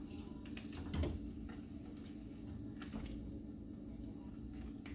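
Faint steady kitchen hum with two light taps, about one second in and again near three seconds.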